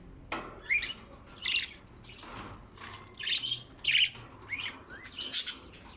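Budgerigars chirping and squawking in short, separate calls, about eight to ten of them.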